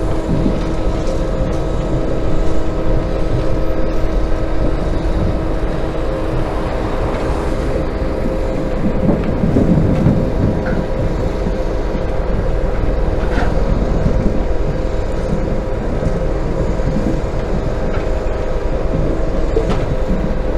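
Tractor engine running steadily, a continuous rumble with a fixed hum of several tones.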